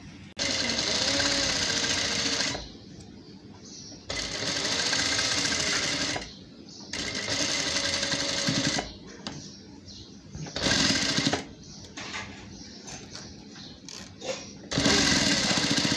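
Electric sewing machine stitching a zip onto fabric lining, running in several bursts of about two seconds and stopping between them, with a few shorter bursts later on.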